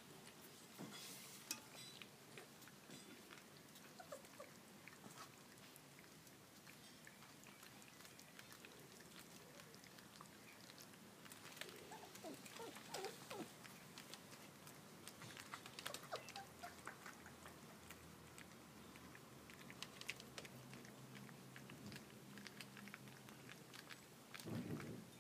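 Four-week-old Labrador puppies lapping and smacking at porridge in a stainless steel feeding dish: faint, irregular wet clicks and ticks, with a short louder low sound near the end.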